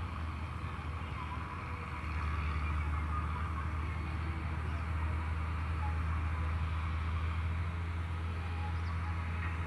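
Steady low background hum with a faint hiss above it, growing slightly louder about two seconds in.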